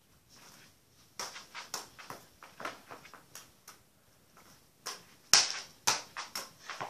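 Football tapped and juggled with bare feet: a string of light taps and slaps starts about a second in, with the two loudest knocks about five and a half and six seconds in.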